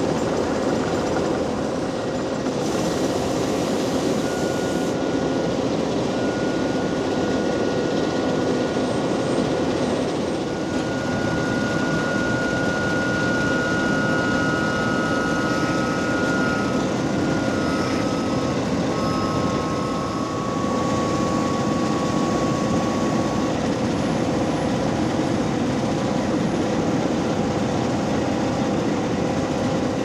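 Heavy asphalt-paving machinery running steadily: diesel engines and hydraulics working as the paver and rollers lay asphalt, with thin whining tones coming and going through the middle.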